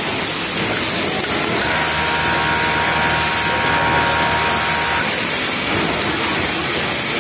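Yamato industrial flatlock sewing machine running for about three seconds as it stitches the bottom hem of a T-shirt, its steady motor hum starting about a second and a half in and stopping near the end. Underneath is the constant noise of a garment factory floor.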